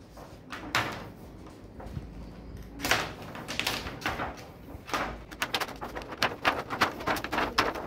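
Thin plastic reflector sheet from an LED TV backlight rustling and crackling as it is flexed and lifted off the LED strips. A few sharp crackles come first, then a quick run of them in the second half.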